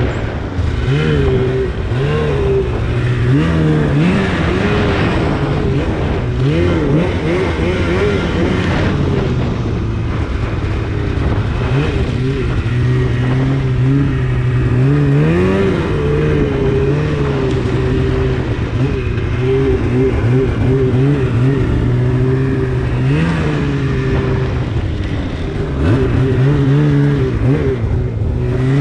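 2016 Polaris RMK 800 snowmobile's two-stroke twin engine, fitted with a Bikeman exhaust can, running at a steady note under way, with repeated quick throttle blips that briefly raise the pitch, about a second in, around 6 to 8 seconds, mid-way and again near 23 seconds.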